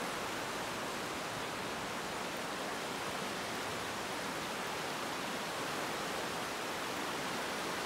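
Fast-flowing river rushing, a steady, unbroken wash of water noise.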